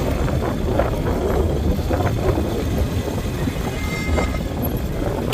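Motorcycle being ridden slowly along a town street: a steady low rumble of engine and wind noise.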